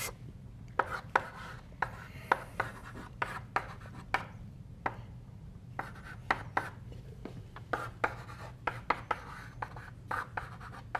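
Chalk writing on a blackboard: a run of short, sharp, irregular taps and brief scrapes as the chalk strikes and drags through each symbol.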